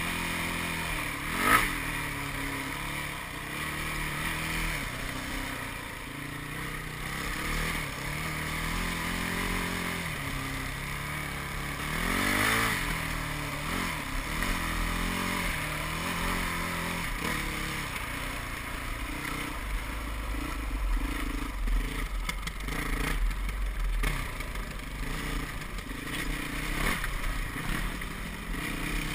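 Yamaha WR450F's single-cylinder four-stroke engine revving up and down as the dirt bike is ridden over a rocky, leaf-covered trail. A sharp knock sounds about a second and a half in.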